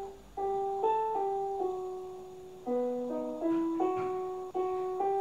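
Piano playing a slow melody of single notes and chords that ring and fade one after another.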